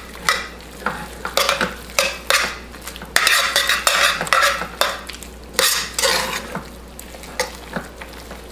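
Metal tongs tossing pasta and chicken in a buttery sauce in a stainless steel sauté pan: irregular stirring and scraping strokes, with clicks of the tongs against the pan.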